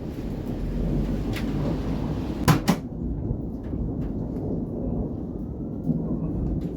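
Low rumble of distant thunder, with two sharp knocks close together about two and a half seconds in.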